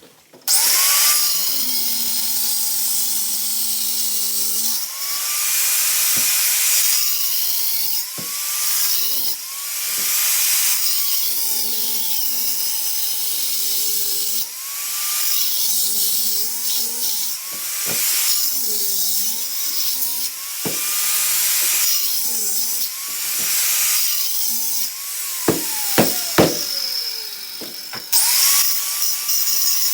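Handheld electric power tool running under load, its motor whine sagging and recovering every second or two as it bites into the work. Near the end the motor winds down, a few sharp knocks follow, and it starts up again.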